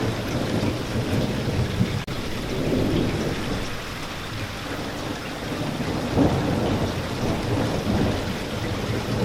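Steady heavy rain with a low rumble of thunder that swells about six seconds in. There is a momentary break in the sound about two seconds in.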